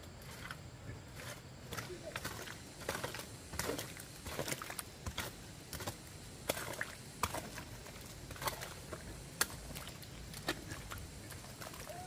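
Irregular sharp clicks and knocks, roughly one a second, over a low steady rumble.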